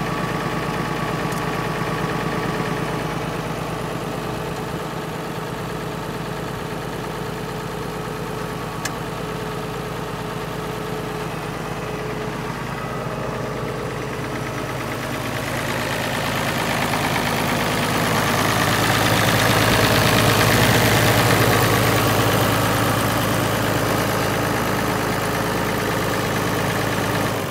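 Farmall 656 tractor engine idling steadily, getting louder and brighter about halfway through.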